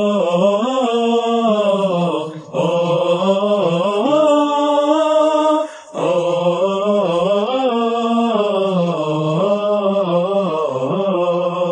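Background song: a wordless sung 'oh' line of long, held, wavering notes, broken into three phrases with short breaks about two and a half and six seconds in.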